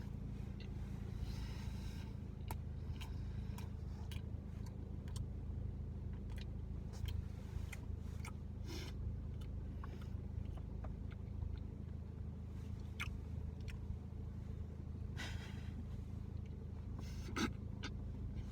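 Car engine idling, heard from inside the cabin as a steady low hum, with scattered short clicks and brief rustles over it.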